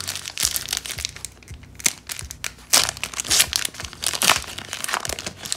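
Foil wrapper of an O-Pee-Chee Platinum hockey card pack being torn open and crinkled by hand: a run of irregular crackling rustles.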